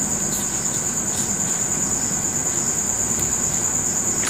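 Steady, high-pitched insect trill that runs without a break, with a few faint clicks of small plastic parts being handled.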